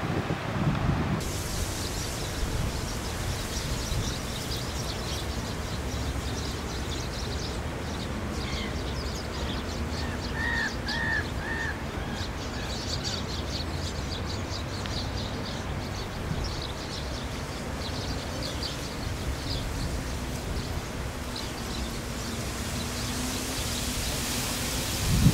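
Small birds chirping repeatedly over a steady low rumble, with a crow giving three short caws about ten seconds in.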